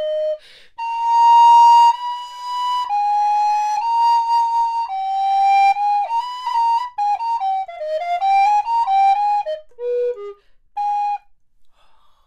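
Vincent Bernolin resin Ganassi-model alto recorder in G, fitted with its low Baroque-pitch 415 Hz body joint, playing a melodic phrase. It begins with a few long held notes, moves into a quicker run of notes winding downward, and ends on two low notes about ten seconds in, followed by one short note.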